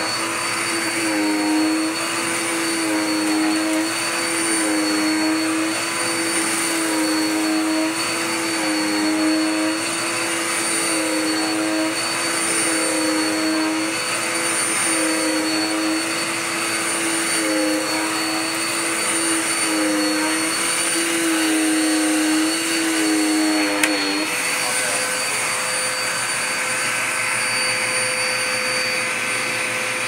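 Dirt Devil Power Max vacuum cleaner running with its hose attachment, the motor's whine wavering in pitch about every second and a half. About four-fifths of the way through, the whine drops away into a steadier rush of air.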